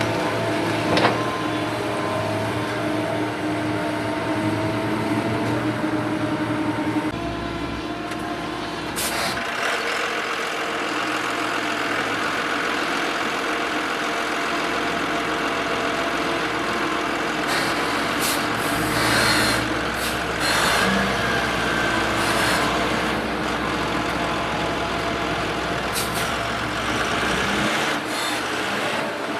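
Heavy trucks running, with several short sharp hisses or knocks around the middle and near the end.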